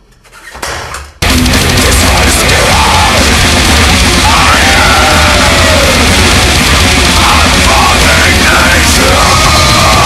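Black metal music breaks in loudly about a second in after a short swell: a dense, unbroken wall of distorted sound with harsh screamed vocals over it.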